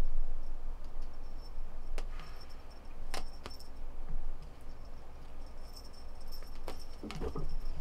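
A tabby cat playing with a feather cat-teaser wand: light, high-pitched tinkling in short stretches with scattered sharp clicks and scuffs, and a quick cluster of clicks near the end as the cat swats at the toy.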